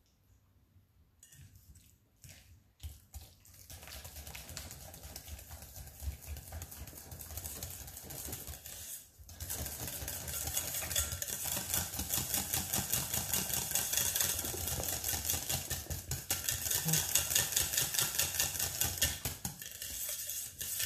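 Balloon whisk beating a thick fromage blanc and cream cheese mixture in a stainless-steel bowl: fast, rhythmic scraping and clinking of the wires against the metal. It starts a few seconds in, pauses briefly near the middle, then carries on louder.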